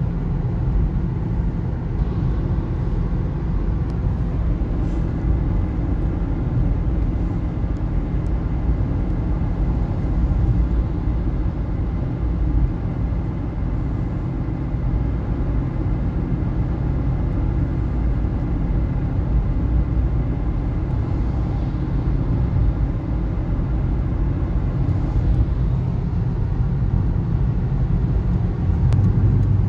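Steady low rumble of a car's engine and tyres heard from inside the cabin while driving on a motorway.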